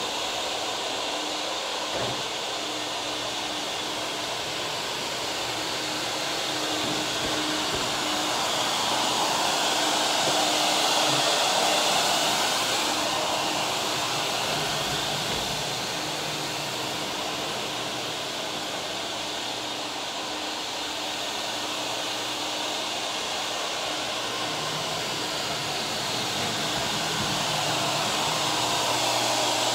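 Ruwac walk-behind industrial vacuum running steadily with its 32-inch floor sweep head, picking up silica dust from a concrete floor: a steady rush of air over a constant hum. It grows louder about ten seconds in and again near the end as it passes close.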